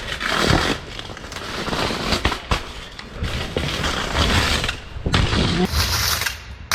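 Bare rear rim of a mountain bike rolling on hard ground with no tyre: a rough, continuous scraping rattle with several sharp knocks.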